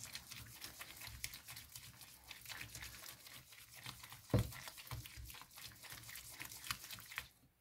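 Silicone spatula stirring and slapping thick cornmeal porridge (banosh) in a frying pan. The sticky mass squelches against the pan with many small crackles from the hot butterfat it has released, and there is one heavier thump about four seconds in. The sound cuts off shortly before the end.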